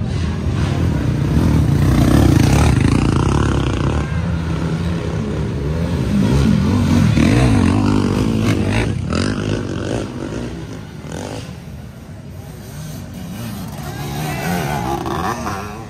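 Racing ATV engines revving hard as quads climb a hill, swelling in loudness twice, about two seconds in and again around seven seconds, then fading, with people's voices mixed in.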